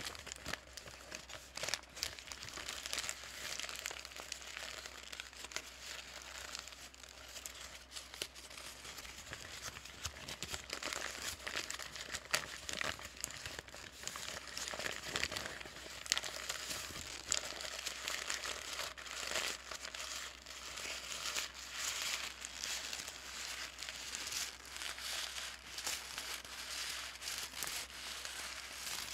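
Paper bag being crinkled and crumpled by hand: a continuous run of dry, sharp crackles with no pauses.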